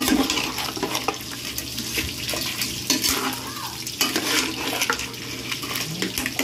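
Metal ladle stirring crabs and shrimp in thick sweet-and-sour sauce in a metal pot: irregular scrapes and clinks of shells and ladle against the pot over the sauce cooking, with a faint steady low hum underneath.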